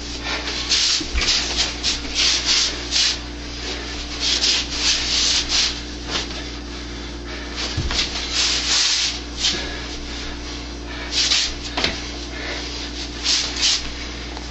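Sleeves and forearms sliding and rubbing against each other in a sticky-hands (chi sao) drill: a run of short, irregular swishes, several a second in bursts, over a steady low hum. There are a couple of soft low thumps, about a second in and near the middle.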